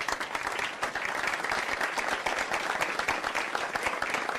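A crowd applauding, with many hands clapping together.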